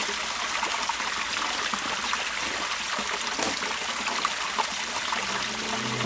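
A small forest stream running with a steady rushing hiss, with a few faint crackles of dry leaves and twigs underfoot. Background music comes in near the end.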